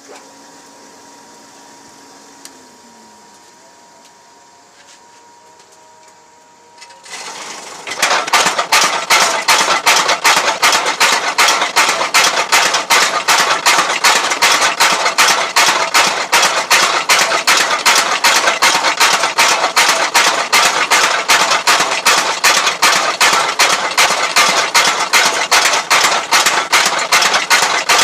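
Homemade blacksmith's power hammer forging a sickle blade: after a faint steady hum, it starts about seven seconds in and pounds the steel in a fast, even run of loud blows, several a second.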